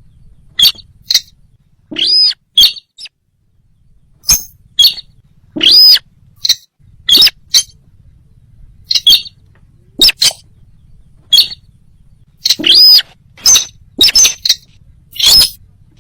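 Sintar bird calls, the lure call used to draw the bird in: short, sharp, high-pitched notes repeated at irregular intervals, with a few longer arched notes among them.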